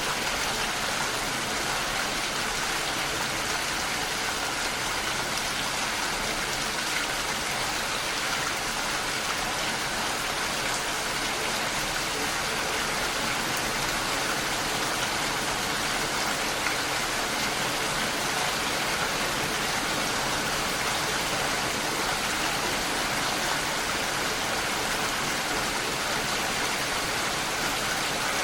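Steady heavy rainfall, an even hiss of rain without breaks or distinct drops.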